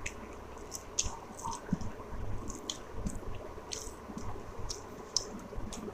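Close-up mouth sounds of a person eating rice and curry: wet chewing and smacking with many small irregular clicks.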